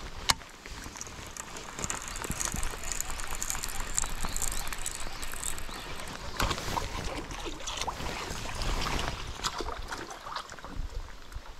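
Heavy rain falling on the water and on a rain jacket, a steady hiss dotted with many small ticks and taps, with one sharp click about a third of a second in.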